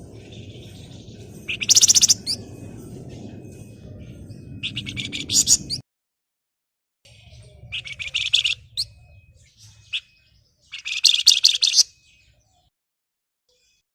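Flamboyan (Javan fulvetta) singing: four bursts of rapid, high chattering notes a few seconds apart, with a low steady hum underneath during the first half.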